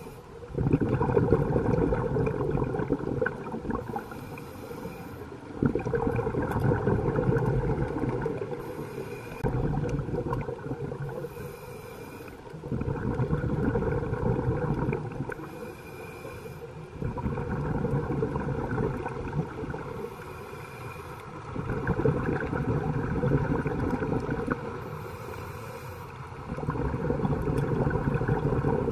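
A scuba diver breathing through a regulator underwater. Each exhalation is a two-to-three-second rumble of bubbles, repeating about every four seconds, with a short hiss of inhalation in the gaps between them.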